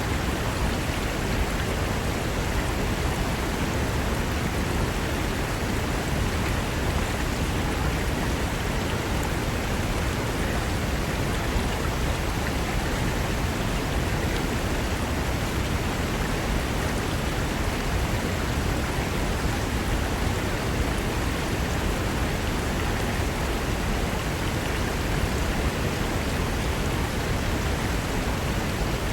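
Fast mountain river rushing over rocks: a steady, dense rush of water without a break.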